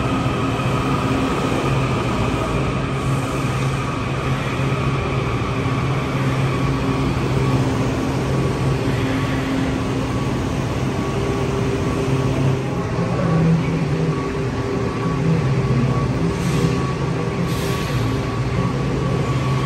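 Kawasaki 7000-series Washington Metro railcar standing at the platform in an underground station, its onboard electrical equipment humming steadily with several held tones over station ambience.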